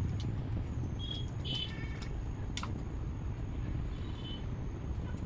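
Steady low background rumble, with a few brief high chirps and a single click about two and a half seconds in.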